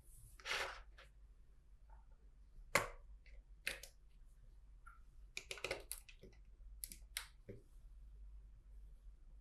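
Plastic clicks and light rattles of vintage 1985 LEGO bricks being handled and pressed together, in scattered taps. The sharpest comes about three seconds in, and a quick cluster follows a couple of seconds later.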